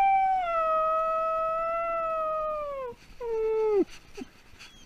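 A dog left alone by its owner, howling in distress. One long howl holds a steady pitch for about three seconds, sinking slightly, then a shorter, lower howl falls away sharply at its end.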